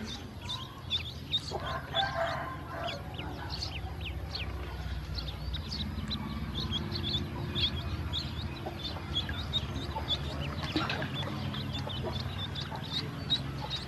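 Ducklings peeping: a constant chorus of short, high, downward-sliding peeps, several a second, over a steady low rumble.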